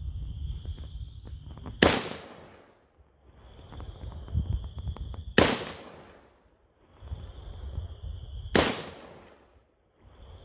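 Three single shots from a Zastava PAP M90 semi-automatic rifle in .223/5.56, a little over three seconds apart, each followed by a long rolling echo.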